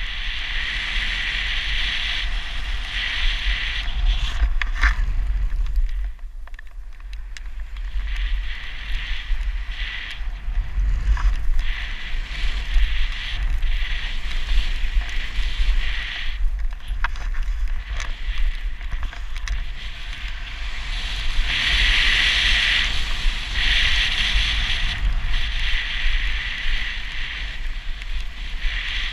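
Wind buffeting the microphone of a helmet-mounted camera while snowboarding, a steady low rumble. A snowboard's hiss over snow comes and goes in stretches, with a few light clicks.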